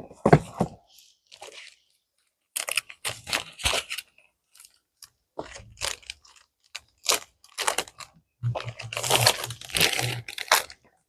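Plastic packaging and kit contents of a diamond painting kit crinkling and rustling in irregular handfuls as they are handled.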